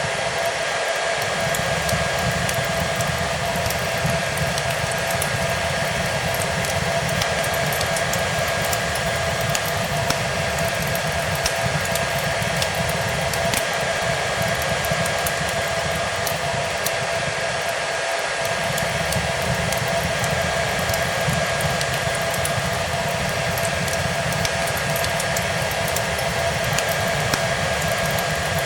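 Hair dryer running steadily, a constant rush of air with a steady motor whine, mixed with the faint crackle of a wood fire.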